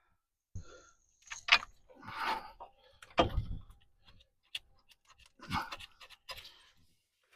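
Metal tools and bolts being picked up and handled: separate clinks, knocks and short rattles in about five bursts with pauses between them.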